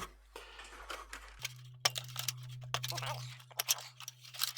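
Hands working on an opened electronic keyboard: a run of small sharp clicks and scrapes, with a steady low hum coming in about a second and a half in.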